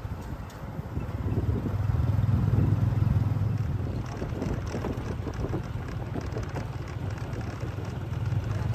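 Motorbike-drawn tuk-tuk riding along a road: a steady low engine and road rumble, with wind rushing over the microphone.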